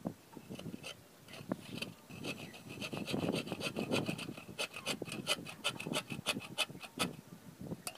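Bow saw cutting through a green bamboo pole: rasping back-and-forth strokes, scattered at first, then quick and regular from about two seconds in, stopping about a second before the end.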